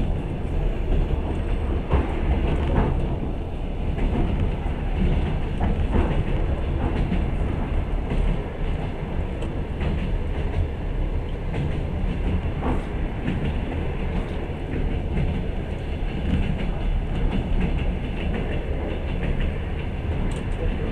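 Passenger train carriage running along the track: a steady rumble, with the wheels clacking over rail joints now and then, heard from inside the carriage.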